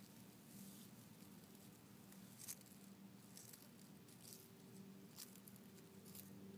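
Faint, scattered rustles and soft crackles of grass as a desert tortoise walks through it, over a faint steady low hum.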